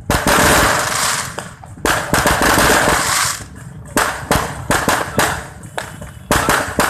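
Fireworks going off close by: sharp bangs in quick succession, with two long stretches of dense crackling in the first half, then separate loud reports several a second.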